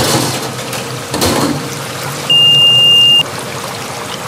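A single steady, high-pitched electronic beep lasting about a second, after two short rushes of hiss.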